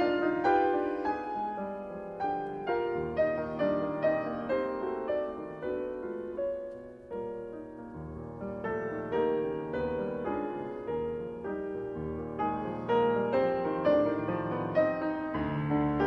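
Classical piano music: a slow, steady run of separate notes, each struck and left to fade.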